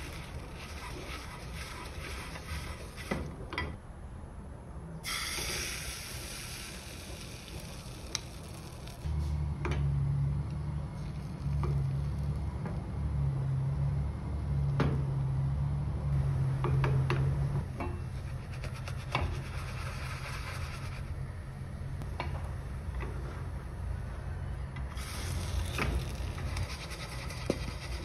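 Paper towel rubbing excess oil out of a nonstick frying pan, then oat batter sizzling in the pan over a gas flame, with light taps and scrapes of wooden chopsticks against it. A low hum is loudest in the middle for several seconds.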